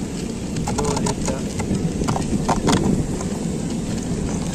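Two metal Beyblade spinning tops, Flame Libra and Cosmic Pegasus, whirring as they spin through sand on a plastic stadium, with scattered sharp clicks and ticks.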